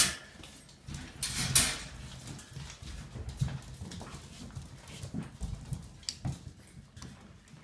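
Seven-week-old Labrador puppies eating dry kibble from stainless steel bowls: busy crunching and chewing with small clicks of teeth and noses on the bowls. Two loud clatters come near the start.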